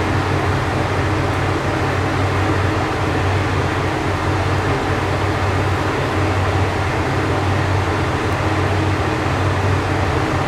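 Diesel railcar of the Kanto Railway Joso Line running with a steady low engine hum under even rail noise, unchanging throughout.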